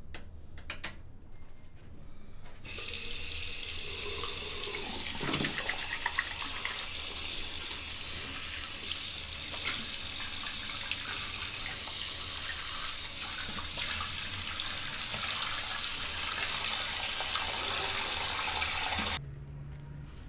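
Bathroom sink tap running into the basin while a man washes his face over it, the water splashing unevenly. The tap comes on about three seconds in and stops suddenly near the end.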